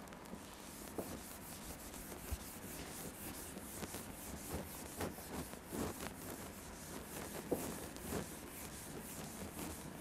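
Whiteboard eraser wiped back and forth across a marker-written whiteboard: a series of irregular rubbing swishes starting about a second in.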